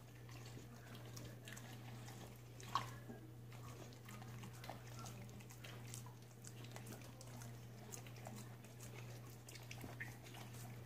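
A dog licking food off a person's fingers: soft, wet licks and mouth clicks, one sharper click about three seconds in, over a steady low hum.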